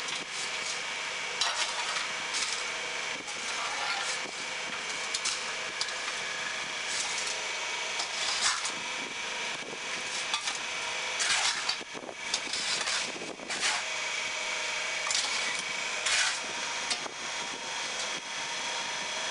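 Hydraulic paving-block press running with a steady hum from its power unit, overlaid by irregular scrapes and knocks as concrete mix and the feed tray are worked over the mould.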